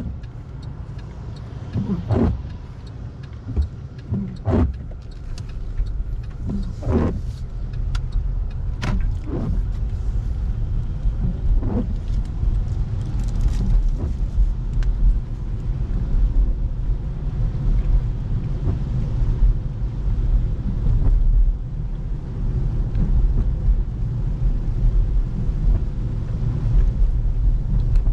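Car driving, with a steady low rumble of engine and road noise that grows heavier after the first few seconds, and several sharp knocks and clicks in the first dozen seconds.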